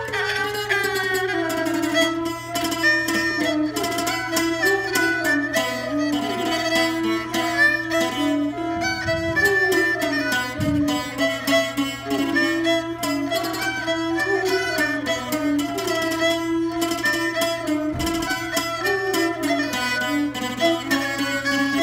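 Thai traditional duet: a jakhe (crocodile zither) plucked with a plectrum, playing a fast run of notes, together with a two-string coconut-shell fiddle (saw u) bowing the melody.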